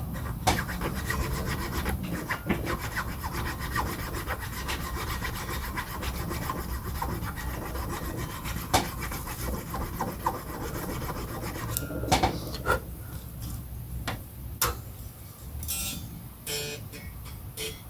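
Steady hand rubbing strokes on a thin mahogany shim being shaped to about a millimetre thick, for the guitar's neck pocket, giving way after about twelve seconds to a few separate clicks and knocks.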